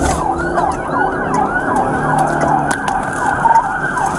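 Police siren in a rapid yelp, its pitch sweeping up and down about three times a second, heard from inside the patrol car's cabin during a pursuit.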